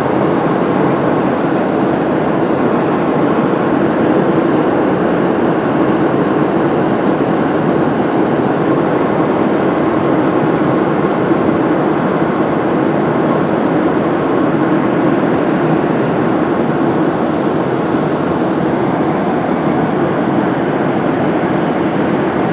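Steady roar of jet engines and rushing air heard inside the cabin of a Southwest Airlines Boeing 737 in flight.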